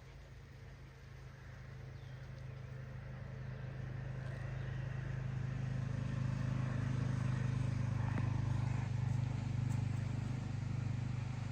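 A motor vehicle's engine running with a steady low hum, growing louder over the first five or six seconds and then holding steady.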